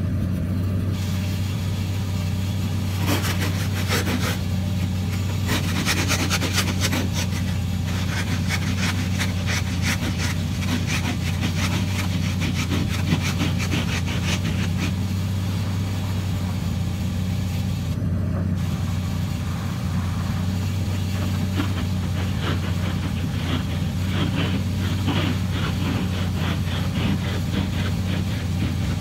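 Steady low engine and road drone inside a moving car's cabin. A dense crackle comes and goes over it, most of all in the first half and again near the end.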